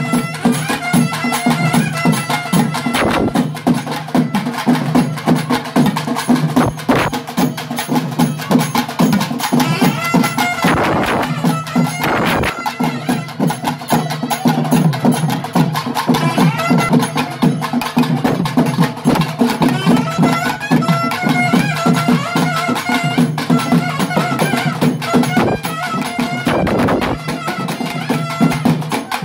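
Live South Indian folk ritual music: a drum ensemble of barrel and frame drums playing fast, steady strokes over a sustained drone, with a melody line above it.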